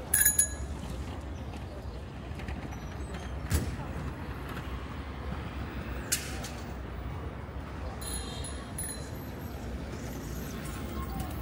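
City street ambience: a steady low rumble of passing traffic with faint voices of passers-by. A brief, sharp ringing sound comes just after the start and is the loudest moment, with single sharp knocks about three and a half and six seconds in.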